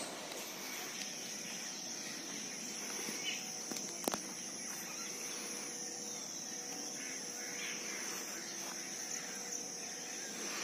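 Outdoor park ambience: a steady high-pitched insect drone, with faint bird calls now and then and a single sharp click about four seconds in.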